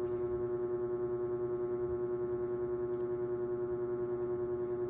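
Background music: one steady sustained drone, like a gong or singing bowl held without fading, wavering evenly several times a second.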